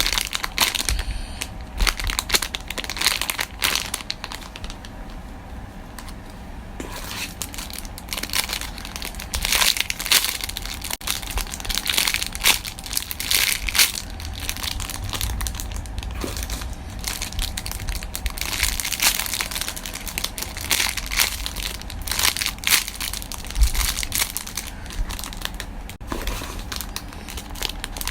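Plastic packaging crinkling and rustling in irregular spurts as a parcel is handled and unwrapped, quieter for a few seconds early on.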